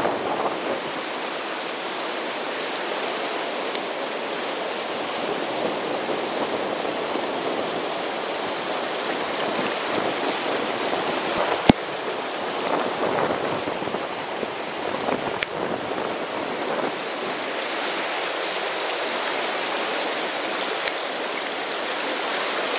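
Steady, loud rush of whitewater rapids. A few sharp clicks cut through it, the strongest about halfway through.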